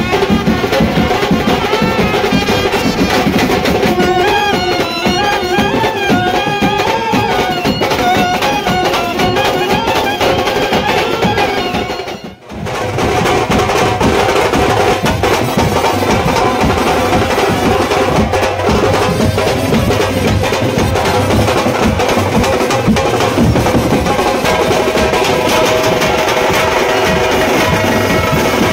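Traditional music with drums and percussion under a melody, dropping out briefly about twelve seconds in before carrying on.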